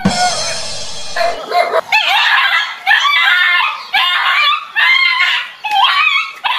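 A dog barking and yelping in a string of short, pitched cries.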